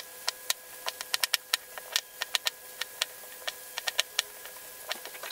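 Chef's knife dicing onion on a plastic cutting board: irregular sharp taps of the blade striking the board, several a second.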